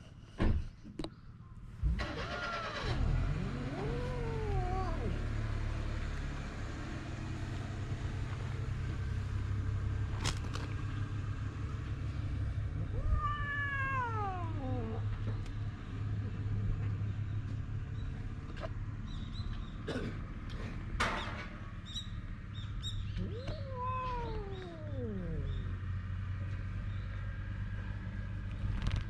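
Cat meowing three times in long, drawn-out calls that fall in pitch, over a steady low hum, with a few sharp clicks in between.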